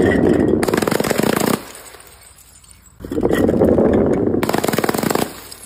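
Two bursts of rapid automatic fire, each a quick run of sharp shots lasting about two seconds. The first stops about a second and a half in; the second starts about three seconds in.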